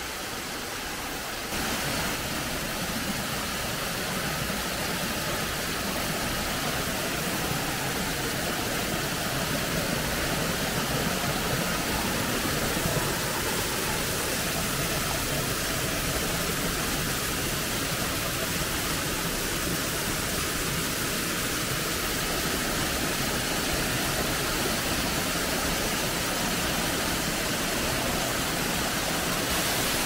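A waterfall rushing with a steady, loud hiss of falling water; it grows louder about a second and a half in.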